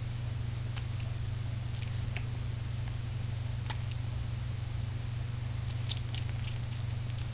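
Puppy suckling at its mother's teat, a few scattered small wet clicks, over a steady low hum.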